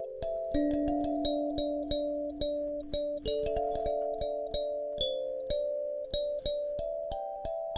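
Background music: a gentle keyboard melody of evenly paced struck notes, a few a second, over held lower notes.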